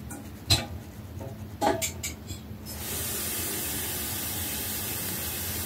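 Two sharp handling knocks about half a second and a second and a half in, with a few fainter clicks after them. From about three seconds in, a steady, even hiss holds.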